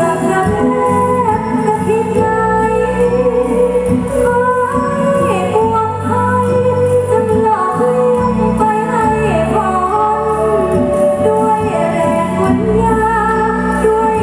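A woman singing a Thai song into a microphone with instrumental backing and a steady beat, played over stage loudspeakers.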